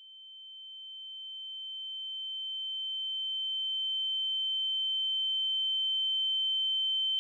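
A high-pitched pure electronic tone, like ringing in the ears, holding one steady pitch and slowly swelling louder. It is a film sound effect that stands in for the surrounding sound going silent.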